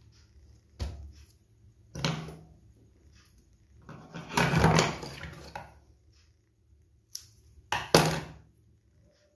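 Handling noises from working on a cooler fan motor: single knocks about one and two seconds in, a longer scraping rustle in the middle, and a quick pair of sharp knocks near the end, as the wires and the metal housing are handled.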